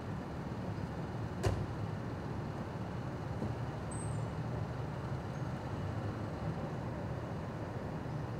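Steady low rumble of cars idling on a street, with a single sharp knock about one and a half seconds in.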